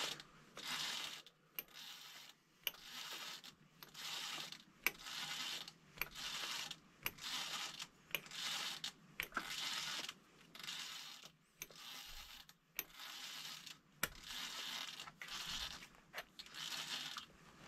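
A small tap cutting a thread in a metal piston, worked slowly a part-turn at a time: a repeated rasping scrape a little more than once a second, with sharp clicks in between.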